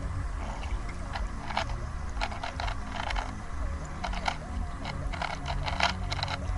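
A 3x3 Rubik's cube being turned fast: quick runs of small plastic clicks in irregular bursts, over a low steady rumble.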